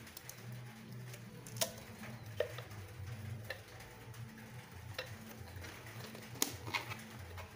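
Hands handling a tin can, a stretched rubber balloon and rubber bands: a scatter of small clicks and taps, about five clearer ones, the loudest about six and a half seconds in, over a faint low hum.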